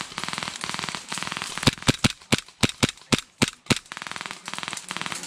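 WE Glock 17 Gen 5 gas blowback airsoft pistol firing about ten sharp shots in quick succession over two seconds, starting about a second and a half in. Before and after the shots, a fast, steady rattle of rapid airsoft full-auto fire.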